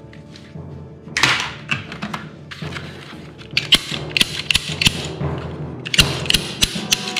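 Toy guns and their parts being handled: a run of irregular sharp clicks and clacks, busier in the second half, over steady background music.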